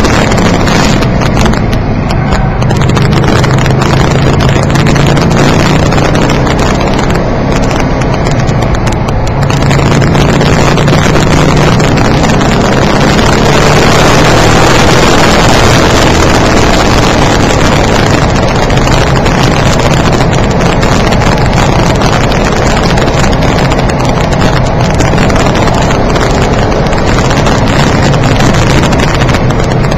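Car engine and road noise inside the cabin while the car is driven at speed, loud and distorted by an over-sensitive microphone. The noise eases briefly twice, about two seconds in and again around eight seconds.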